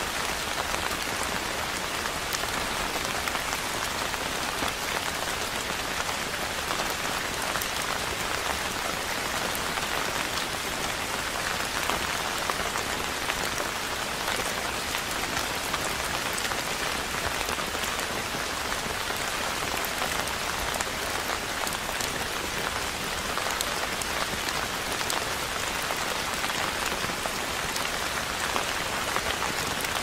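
Waterfall splashing into a pool: a steady, even rush of falling water with fine spattering.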